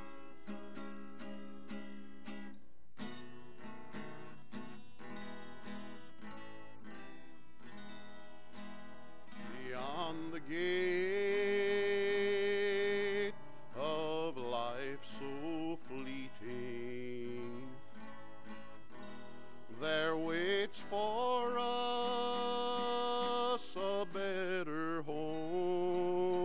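Acoustic guitar strummed in a slow, steady hymn accompaniment. About ten seconds in a man's singing voice joins with long held notes that slide up into pitch, and it comes in again about twenty seconds in.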